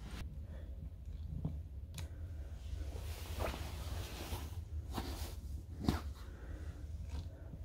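Soft rustling and a few light knocks as a pillow and bed linen are handled, over a steady low room hum.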